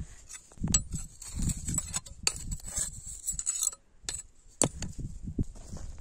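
Small wild greens being cut with a knife and gathered by hand from stony soil: irregular scrapes, clicks and rustles.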